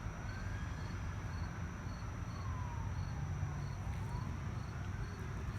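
Night-time outdoor ambience: insects, likely crickets, chirping faintly about twice a second, while a distant siren wails slowly up and down, over a steady low rumble.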